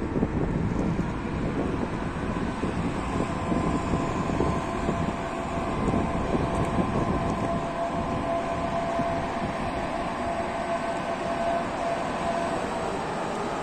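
EP2K electric locomotive hauling a passenger train, pulling slowly out of the station and coming closer: steady running rumble with a faint whine that grows slightly stronger near the end.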